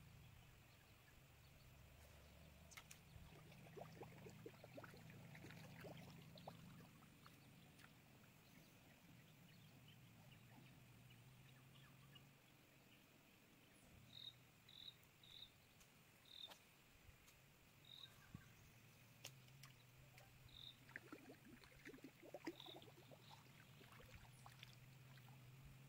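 Near silence: faint outdoor ambience with a low steady hum, a few faint clicks, and a run of about eight short, high chirps spaced about a second apart in the middle.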